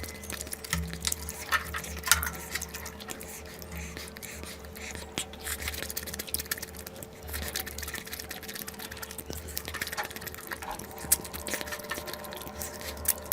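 Wet eating sounds: curry and rice being chewed, with many small irregular sticky clicks and squelches over a faint steady hum.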